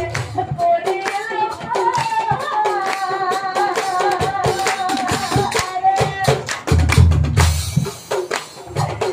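Nagara naam singing: a woman's voice holds a long melodic line over a steady beat of sharp percussive strikes, until about six seconds in. Then heavy low nagara drum strokes come in briefly, about seven seconds in.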